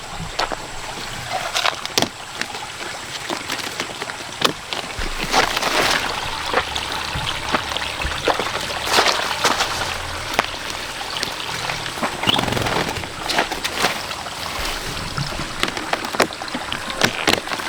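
Water trickling and splashing, with scattered sharp knocks and clicks throughout.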